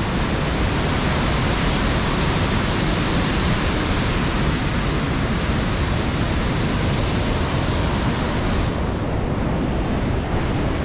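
Waterfall close by: a loud, steady rush of falling water and spray. The high hiss drops back a little about nine seconds in.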